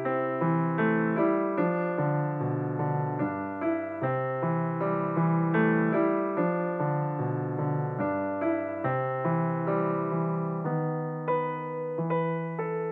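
Background piano music: a slow minuet played note by note, each note ringing and fading.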